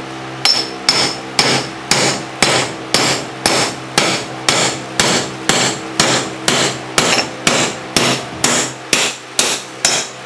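Steady hammer blows, about two a second, on a 7/8-inch socket used as a drift against a Kuhn GMD500 mower spindle shaft, each strike ringing through the metal housing as the shaft and bearing are driven out.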